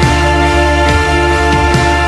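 Instrumental soundtrack music with long sustained notes and a few soft percussive hits.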